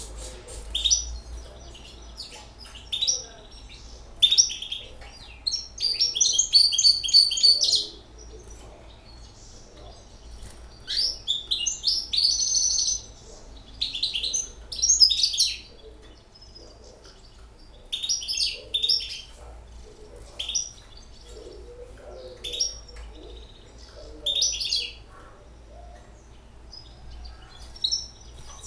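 Young caged hybrid finch singing: about ten phrases of fast, high twittering and trills, separated by short pauses.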